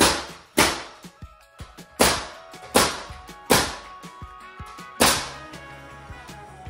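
Pneumatic nail gun driving nails into the wooden header of a framed wall opening: six sharp shots at uneven intervals over about five seconds, with smaller clicks between them.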